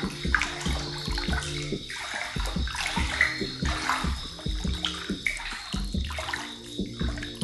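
Water pouring steadily into a hot-spring bath, under background music.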